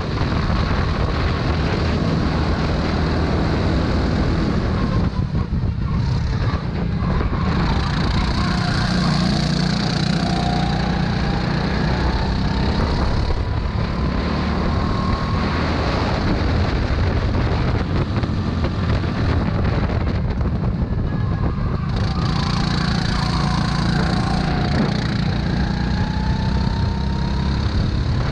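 Go-kart engine running hard, heard from the kart itself, with wind and road noise. Its sound eases briefly a few times as the kart slows for corners, then rises again as it accelerates.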